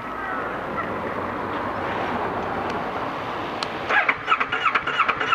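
Starter motor cranking the Kawasaki ER6N's parallel-twin engine, which starts about four seconds in as a loud, even rhythm of about four pulses a second; the engine turns over but does not fire, a no-start the owner suspects comes from a faulty crankshaft or camshaft sensor. Before that, steady background noise.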